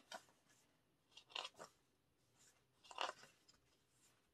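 Faint rustling of photobook pages being handled and turned, a few short swishes about a second and a half apart.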